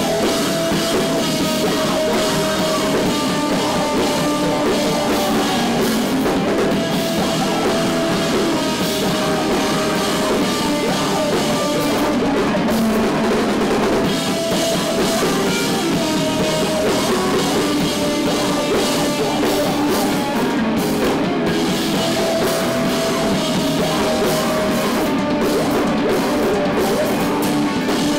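A rock band playing live: electric guitars and a drum kit, loud and continuous.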